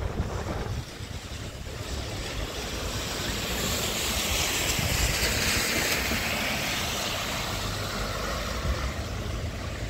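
Car tyres hissing on wet asphalt as a vehicle drives past, the hiss swelling a few seconds in and fading again, over a steady low traffic rumble.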